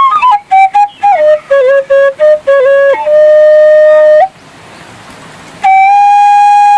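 Bamboo suling flute playing a melody. It begins with a run of quick, ornamented short notes, then holds a note, breaks off briefly with a soft breathy hiss about four seconds in, and comes back on a long held note.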